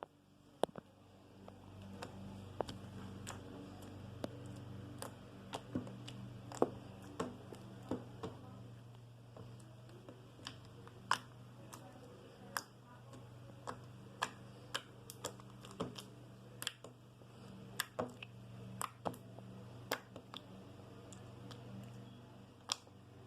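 Slime being squeezed and played with by hand, making many small, irregular clicks and pops over a faint steady low hum.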